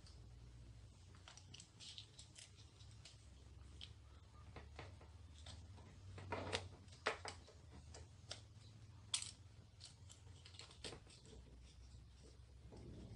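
Faint scattered clicks and light rattles of plastic parts being handled as a hot glue gun's plastic trigger and small coil spring are fitted into its open plastic housing, with a few sharper clicks between about six and nine seconds in. A low steady hum runs underneath.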